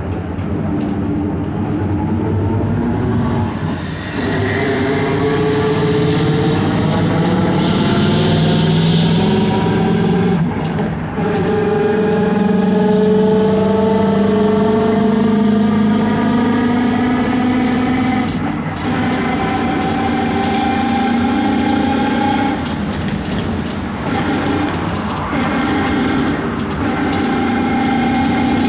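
A 2012 Mercedes-Benz OF-1721 BlueTec5 city bus under way, its diesel engine running with a growling differential. A whine from the drivetrain climbs slowly in pitch as the bus gathers speed, breaking off briefly at gear changes about 4, 11 and 18 seconds in. Later it holds a steady pitch.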